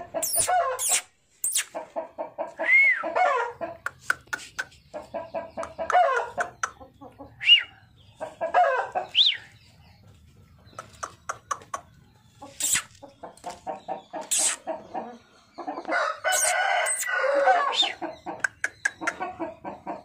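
Chickens clucking in rapid runs of short calls, with a rooster crowing for about two seconds roughly three-quarters of the way through.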